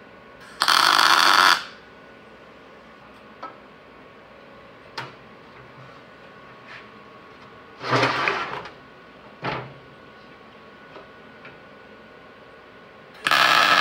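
Short bursts of MIG welding: tack welds on a steel tube frame, about a second each, three times, with a few light metal knocks in between.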